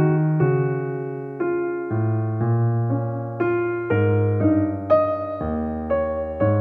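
Background music: a gentle melody on a keyboard-like instrument over held bass notes, the notes changing about every half second.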